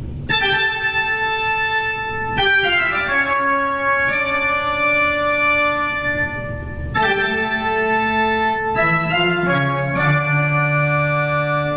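Intro music of long held organ chords, the chord changing every few seconds.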